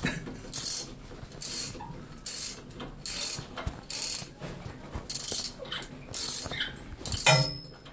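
Ratchet wrench clicking in repeated short back-and-forth strokes, about one a second, as it loosens a small nut on a shower valve.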